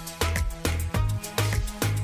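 Background music with a steady beat: dance-style track with heavy bass hits and drums.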